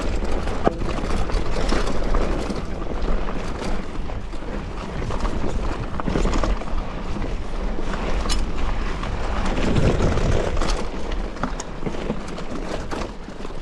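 Wind buffeting the action camera's microphone while riding: a dense rumbling noise with scattered clicks and rattles.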